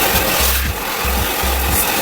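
Thomas washing vacuum cleaner running, its nozzle rubbing and scraping over fabric upholstery as it sucks up cleaning solution from a car seat. Background music with a steady low beat, about two pulses a second, plays under it.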